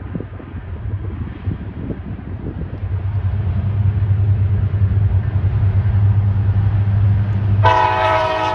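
Approaching diesel locomotive: a low engine drone that grows louder, then the locomotive's horn sounds near the end, several tones at once.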